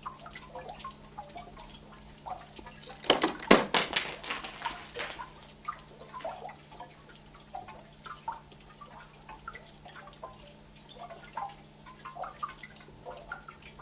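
Water dripping in small, irregular drops. About three seconds in comes a louder cluster of quick knocks and crackles lasting about two seconds.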